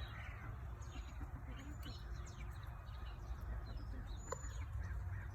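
Chickens making short chirping calls, with a steady low hum underneath and a single sharp tap about four seconds in.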